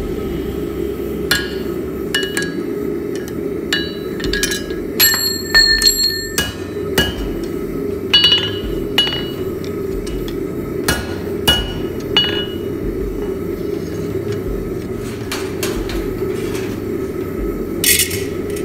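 Hand hammer striking red-hot steel flat stock on an anvil in irregular, spaced-out blows, the strikes ringing, with a quick run of sharp ringing blows about five seconds in. Two short hissing sounds come near the end.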